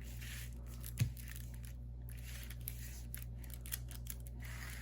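Rustling and crinkling of the plastic packaging and canvas of a diamond painting kit being handled, with a soft thump about a second in, over a steady low electrical hum.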